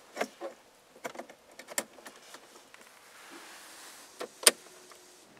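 A handful of sharp clicks and light knocks from hands working the car's dashboard controls and start button, the loudest about four and a half seconds in. No engine is heard running.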